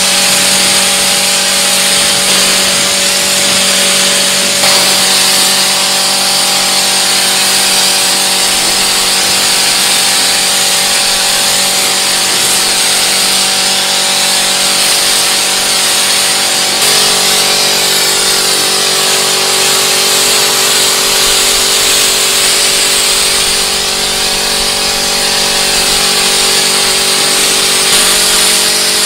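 Pressure washer running steadily: the motor and pump hum under the hiss of the high-pressure water jet striking a car's wheel, tyre and body panels. The hum shifts slightly in pitch about five seconds in and again midway.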